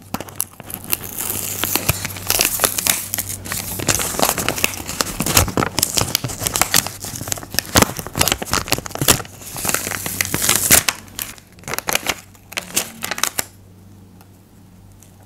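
Paper crinkling and rustling in quick irregular crackles as a paper doll and a crumpled white paper piece are handled, easing off about two seconds before the end.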